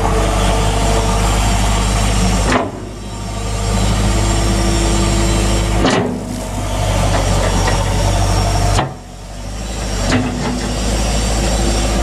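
John Deere 317 skid steer's diesel engine running under hydraulic load as the loader arms and bucket are worked. There are three sharp knocks, a few seconds apart, and after each the engine sound drops briefly and then builds back up.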